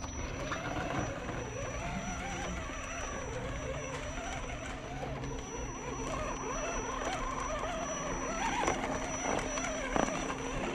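Electric motor and gear drivetrain of an Axial SCX10 RC crawler whining as it crawls over rock, the pitch wavering up and down with the throttle. A couple of sharp knocks near the end.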